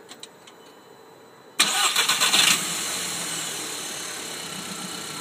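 Car engine starting: a few faint clicks, then about one and a half seconds in it cranks and catches with a short rev flare, settling into a steady idle.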